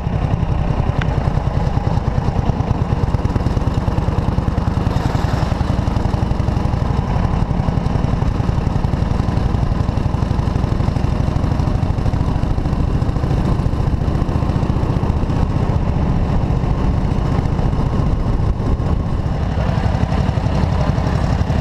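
Classic motorcycle engine running steadily under way, heard from aboard the bike, with a loud, low, even exhaust beat.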